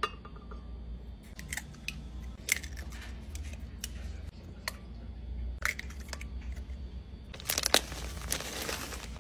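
Scattered light clicks and taps of a spoon, a can and eggshells against a glass blender jar as ingredients are tipped in, over a low steady hum.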